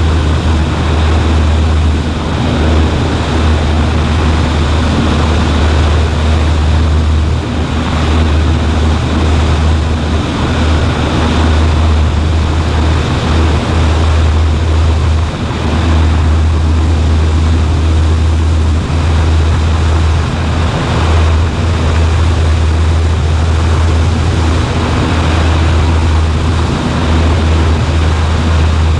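Steady drone of a Cessna 140A's small piston engine and propeller heard from inside the cockpit in flight, deep and unbroken, with a rushing hiss over it.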